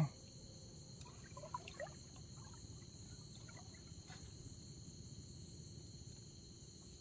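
A steady night chorus of crickets, a constant high trill, over a faint low background hum.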